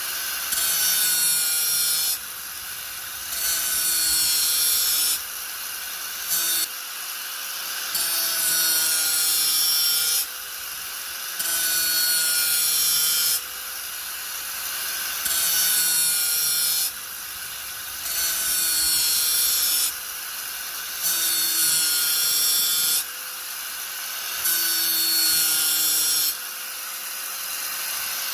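Angle grinder running steadily while its disc is pressed into the workpiece again and again. Loud grinding strokes of one to three seconds alternate with quieter spells where only the motor's whine is heard.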